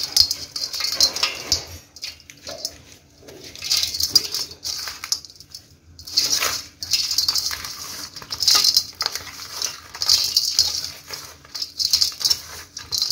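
Dry yellow dirt clods crushed and crumbled between the hands, loose grit trickling onto a perforated aluminium colander. A gritty rustling comes in surges about every two seconds, with small clicks of crumbs landing on the metal.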